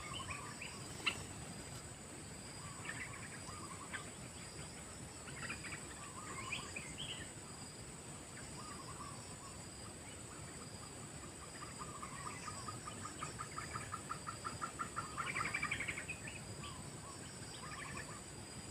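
Bird calls in short scattered phrases, with a rapid run of evenly spaced notes building to its loudest about three-quarters of the way through, over a steady high insect drone.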